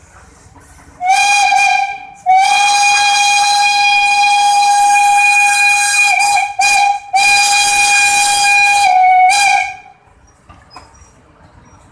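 Steam locomotive's whistle blowing as it passes along street-running rails: a short blast about a second in, then a long steady blast broken by two brief gaps, dipping slightly in pitch just before it stops around ten seconds in.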